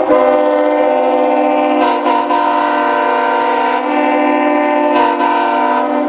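General Electric five-tone air horn sounding a long, loud chord of several steady notes, wavering briefly about two and five seconds in.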